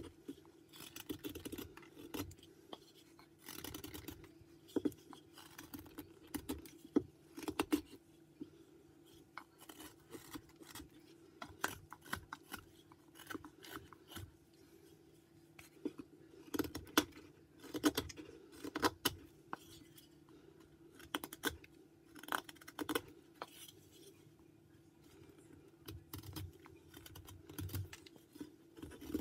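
Whittling knife slicing and paring white pine: a run of short, irregular cuts and scrapes as shavings come off the wood.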